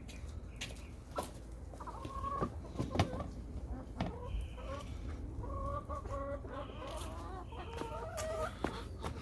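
Chickens clucking, a run of short soft calls one after another, with scattered sharp taps.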